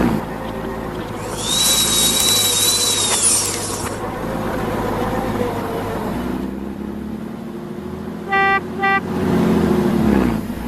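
Motor vehicle engine running and revving up and down. A loud hiss with a thin whistling tone comes about a second in and lasts a few seconds, and two short horn beeps come near the end.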